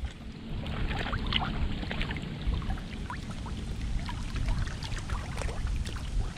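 River water lapping and splashing at the bank: many small, irregular splashes over a steady low rumble.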